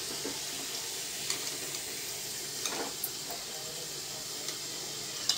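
Batter-coated potato pieces deep-frying in hot oil in a kadai, with a steady sizzle of bubbling oil and a few light clicks as a steel slotted spoon works the pieces.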